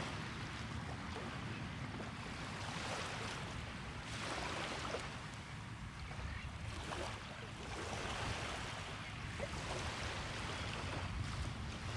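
Small beach waves breaking and washing up the sand, the hiss of the surf swelling and easing every few seconds over a low rumble of wind.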